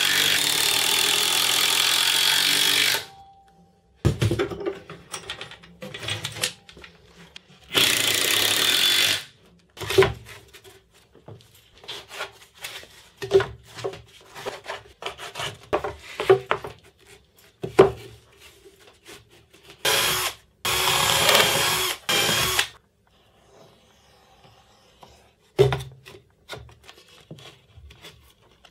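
Cordless driver driving screws into plywood in four bursts of a second to three seconds each, the first at the start and the others about eight and twenty seconds in. Between them, knocks and clatter of plywood boards being handled and set on a bench.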